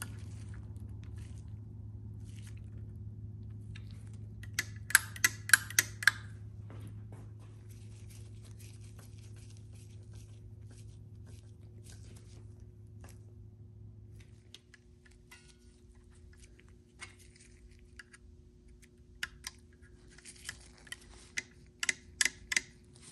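Sharp metal clicks and taps of a screwdriver and small parts being worked on a chrome-plated Recaro seat hinge's lever mechanism: a quick run of about five clicks around five seconds in, and scattered clicks near the end. Under them a low steady hum stops about two-thirds of the way through.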